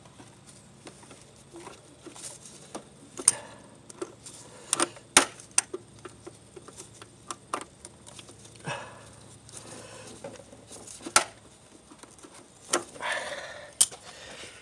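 Irregular metal clicks and clacks of a hand tool working a clamp off a coolant hose at a throttle body, with a few sharp louder clacks and a short scraping rustle near the end.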